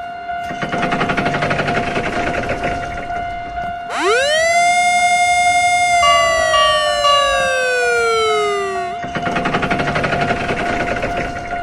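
Synthetic animation sound effects: a steady electronic tone with a fast rattling pulse. About four seconds in, a siren winds up quickly, holds, then glides down over about three seconds, and the rattling tone returns.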